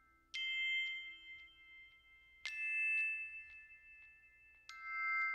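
Background music: three struck bell-like notes, about two seconds apart, each ringing on after a sharp attack.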